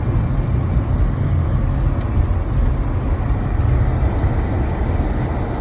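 Car driving at road speed: a steady low rumble of engine and road noise.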